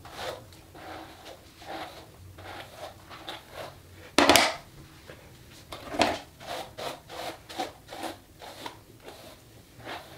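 A hairbrush and hands rubbing through long hair: a run of short brushing swishes about two a second, with two louder, sharper sounds about four and six seconds in.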